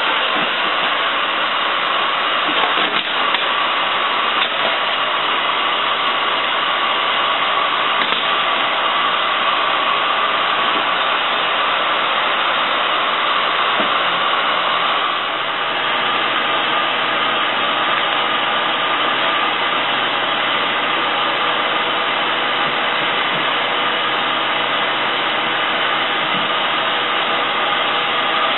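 Electric heat gun running steadily, a loud, even blowing hiss with a faint hum, dipping briefly about halfway through.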